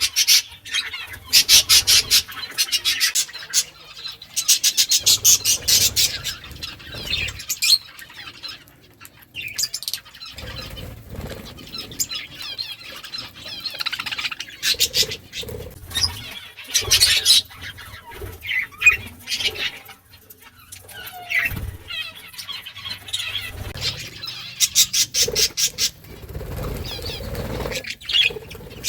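Pet budgerigars chirping and chattering while they feed, broken by several bursts of fast, even clicking.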